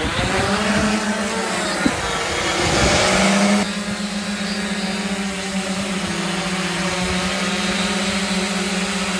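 Electric brushless lift motors and propellers of a quadplane VTOL model aircraft running at takeoff power as it lifts off vertically and climbs, a steady high buzz. The pitch wavers for the first few seconds, then the sound drops a little in level and holds steady.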